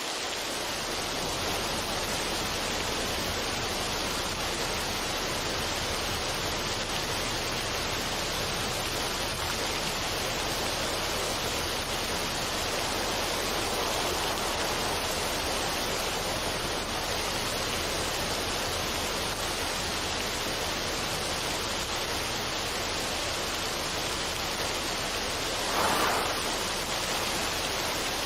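Steady, even rushing noise, close to flowing water or pink noise, with a brief louder swell near the end.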